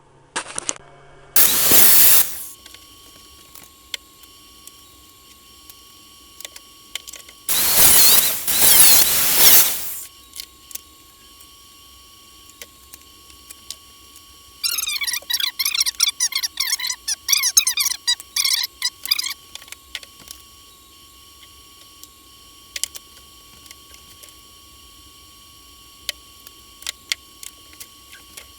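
Cutting and handling 3-inch PVC pipe to notch it. A loud scraping burst comes about two seconds in and a longer one at about eight to ten seconds. From about fifteen to nineteen seconds there is a run of quick, choppy scraping strokes, with scattered clicks of handling.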